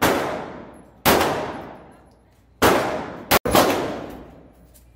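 Handgun shots fired one at a time, four or five in all, the first three about a second or more apart and the last two close together, each crack followed by a long echo dying away in an indoor shooting range.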